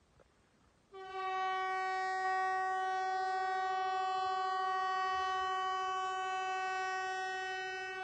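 Newly installed MKT 75/370 compressed-air typhoon of Sweden's outdoor warning system ("Hesa Fredrik") sounding its test signal: one steady, clear horn tone that starts about a second in, holds for about seven seconds and begins to fade near the end.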